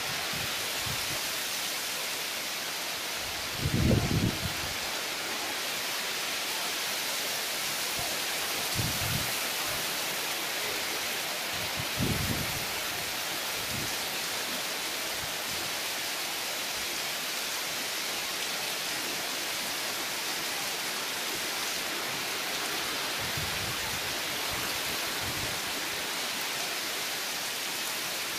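Heavy monsoon rain pouring steadily onto foliage and wet ground. A few brief low rumbles break in, the loudest about four seconds in.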